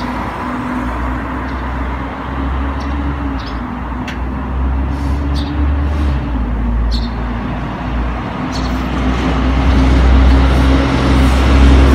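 Street traffic heard from above: a steady low rumble of vehicle engines and tyres, swelling louder near the end as a city bus approaches.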